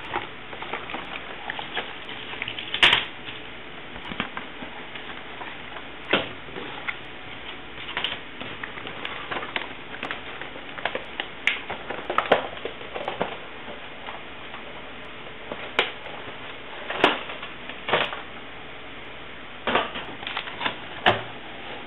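Cardboard box and packaging being opened and handled by hand: scattered clicks, taps and rustles, with a few sharper knocks every few seconds.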